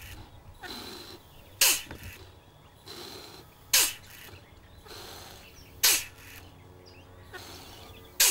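Genesis Power Doser, a gas-pressure push-button dose gun, cycling as it dispenses repeated doses into a measuring cylinder for calibration. A short sharp burst of hiss comes about every two seconds, four times, each after a softer rushing sound.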